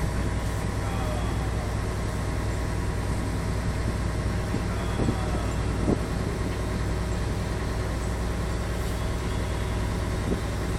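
Heavy engine of the lifting or hauling machinery running steadily, with a few faint knocks about halfway and near the end.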